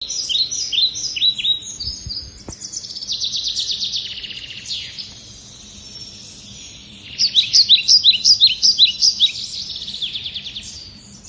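Songbirds chirping and trilling: quick runs of sharp falling chirps and fast rattling trills. A quieter stretch comes in the middle, then a loud burst of repeated falling chirps.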